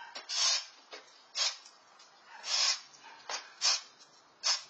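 Broom bristles sweeping a concrete patio: a series of short, brushing scrapes, about seven strokes at an uneven pace.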